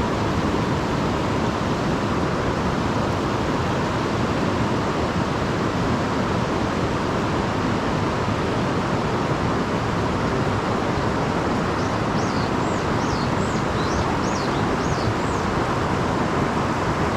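Steady rush of a river's flowing water. About twelve seconds in, a bird gives a quick series of short, high chirps lasting a few seconds.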